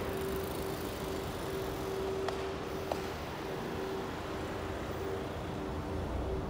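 Street traffic noise: a steady rushing hiss with a constant hum, and two short clicks a little over two and three seconds in.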